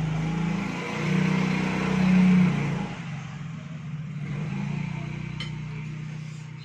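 A motor vehicle engine running, a steady low drone that swells louder about a second in and eases back after about two and a half seconds, then runs on evenly.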